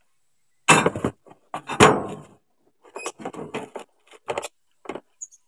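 Metal hand tools clinking and clattering against each other and on metal, as when tools are handled while looking for a screwdriver: two loud knocks in the first two seconds, then a run of lighter clicks.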